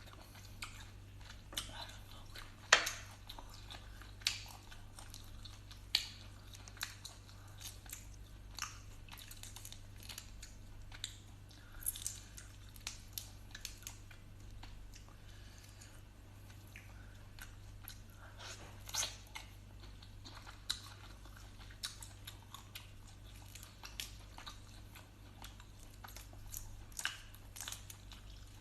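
Boiled prawns being peeled by hand and eaten: the shells crackle and click as they are pulled off, with biting and chewing of the prawn meat. The sounds come as scattered short crackles, the sharpest about three seconds in, over a faint steady low hum.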